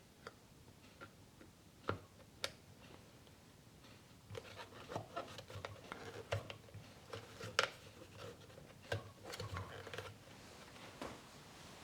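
Hands handling small hard parts: scattered light clicks and taps, getting busier with rustling from about four seconds in.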